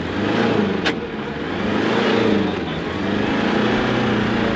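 A pickup truck's engine revs as the truck drives through a muddy rut, its pitch rising and falling.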